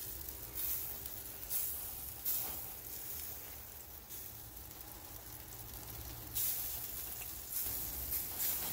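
Beef hot links sizzling on a Weber Q gas grill: a steady hiss with a low rumble underneath and several short, sharp pops of spitting juices, as the heated sausages begin to split.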